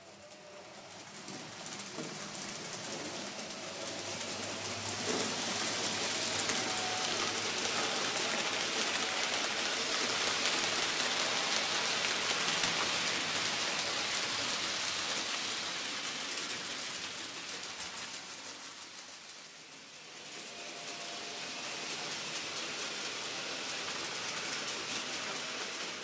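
N-scale model freight train running on the layout's track: a steady hiss of small wheels rolling on the rails with a faint motor whine under it. It swells to its loudest around the middle, fades near twenty seconds, then swells again.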